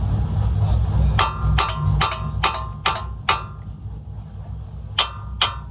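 A large hammer striking metal on a car's front suspension, eight sharp ringing blows: six in quick succession from about a second in, then two more near the end, knocking a stuck suspension joint loose after a rubber mallet failed to free it.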